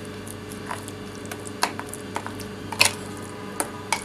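A spoon stirring and mashing banana raita, thick curd with soft banana pieces, in a glass bowl. There is a soft squishing, with scattered clicks of the spoon against the glass, the loudest nearly three seconds in. A steady low hum runs underneath.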